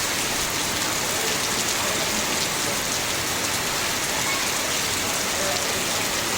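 Heavy rain falling steadily, hissing on surfaces.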